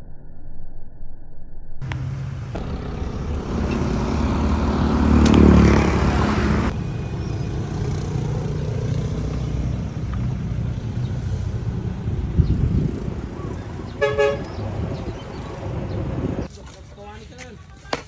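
A motor vehicle's engine running steadily, louder for a couple of seconds early on, with a short horn toot about 14 seconds in.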